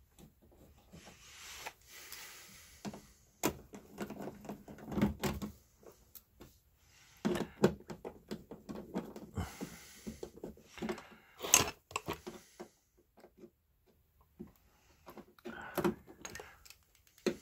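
GE oven door hinges being handled and worked by hand: an irregular run of metal clicks, knocks and scraping, with two sharp clacks, one about three and a half seconds in and one about eleven and a half seconds in.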